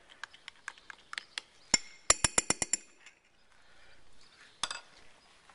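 Metal spoon stirring melted soft plastic in a glass jar, clinking against the glass. Light taps come first, then a quick run of about six ringing clinks around two seconds in, and a couple more taps near the end.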